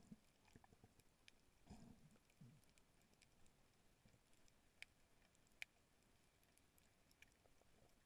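Faint underwater crackle of a coral reef: scattered sharp clicks, the loudest two a little past the middle, and a few soft low thumps about two seconds in.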